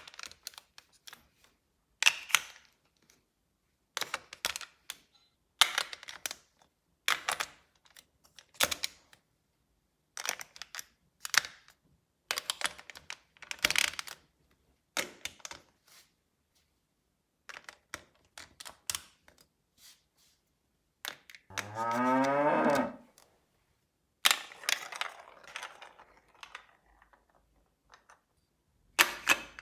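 Marbles clattering and clicking down a plastic LEGO Duplo marble-run track in short rattling runs every second or two. About two-thirds of the way through, a single cow moo lasts about a second and a half.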